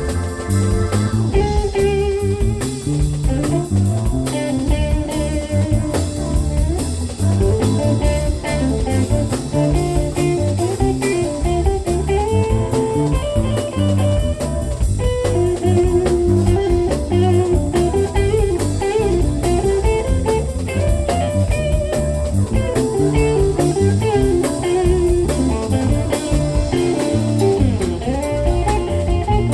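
Live band playing a blues-flavoured instrumental, with guitar over drum kit and a melodic lead line running throughout.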